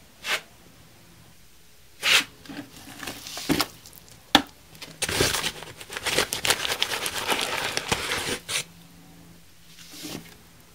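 Dry bonding plaster being scooped from its paper sack and tipped into a bucket: the sack crinkles, the scoop scrapes and the powder pours. There are a few short rustles and a sharp click, then a longer stretch of rustling and scraping about five seconds in.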